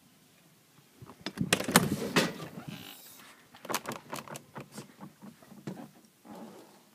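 Clunks, knocks and rattles of a motorhome's side entry door being opened and someone climbing the entry step into the cabin, loudest about a second or two in, then a run of lighter irregular knocks and clicks.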